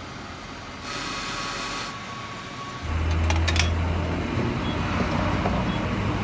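A motor starts up about three seconds in and runs steadily with a loud low hum, after a stretch of quieter hiss, with a few clicks soon after it starts.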